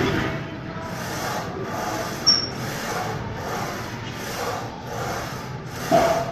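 Gym room noise: a steady din of equipment and people in a large hall, with a few short sharp knocks of metal gym equipment, about two seconds in and again near the end.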